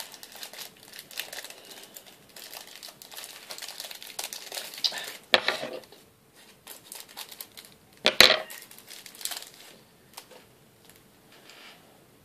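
Plastic foil wrapper of a trading-card pack crinkling as it is handled and torn open, with two louder sharp crackles about five and eight seconds in.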